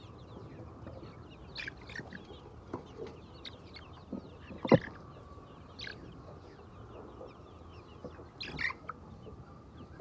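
A large flock of white chickens clucking and calling in a shed, many short overlapping calls throughout over a low steady background hum. A single sharp tap stands out near the middle.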